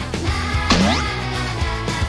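Upbeat background music with a steady bass line. About three quarters of a second in, a quick swooping pitch glide sweeps down and back up over it.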